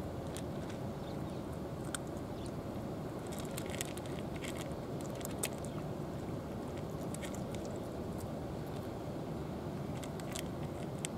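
Two cats crunching dry kibble: scattered short, crisp crunches, thickest around the middle, over a steady low rush of background noise.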